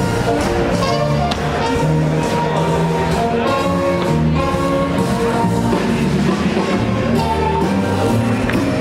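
Swing jazz music with held instrumental notes and a moving melody.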